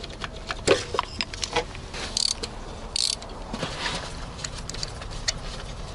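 Clicks, knocks and scraping of a spark plug socket wrench, with two short rasping bursts about two and three seconds in, as old spark plugs are loosened and unscrewed from the engine.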